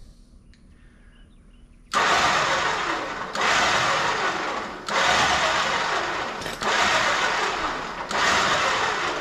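Sherpa Steed 17,000 lb electric winch spooling in its synthetic rope, the motor and gear train running in about five bursts of a second and a half each, starting about two seconds in.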